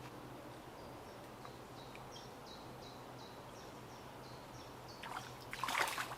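A small songbird singing a run of short high notes repeated about three times a second over a quiet riverside background. Near the end there is a brief, louder noisy scuffle.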